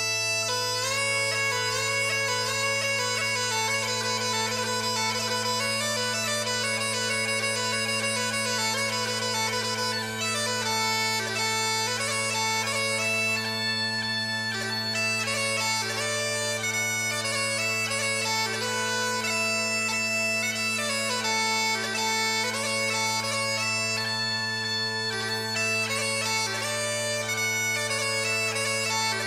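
Bagpipe music: steady low drones under a moving chanter melody, playing without a break.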